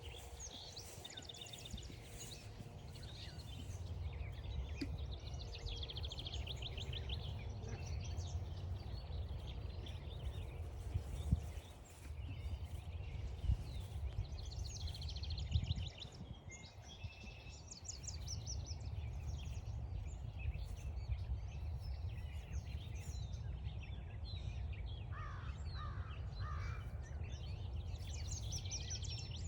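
Mixed songbird chorus: several birds singing high chirps and trills over a steady low rumble, with a few sharp knocks near the middle and three short lower calls about 25 seconds in.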